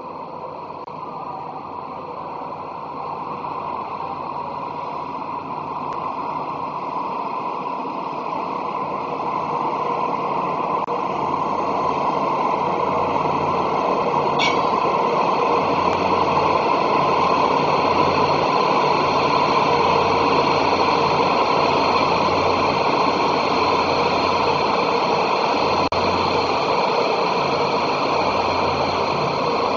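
Rail grinding train DR79271/247 approaching through the station, a steady engine and running noise that grows louder over the first half and then holds. A brief high squeak comes about halfway through.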